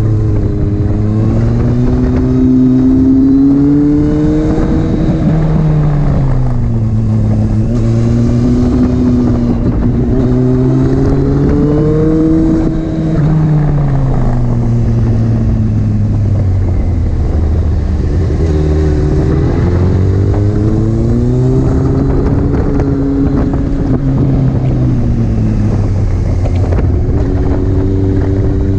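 Honda CBR929RR's inline-four engine revving up and down under a rider on track, its pitch climbing as the throttle opens and dropping off into the corners, three times over. Wind rushes over the microphone.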